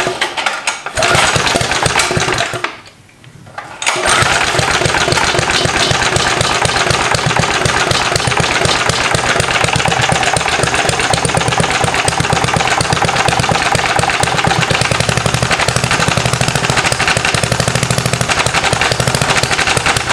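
Briggs & Stratton 3.5 hp horizontal-shaft flathead four-stroke engine on a minibike being started. After a noisy first attempt and a short lull it catches about four seconds in and runs at a steady idle. It will not run above idle, which the owner puts down to carburettor tuning.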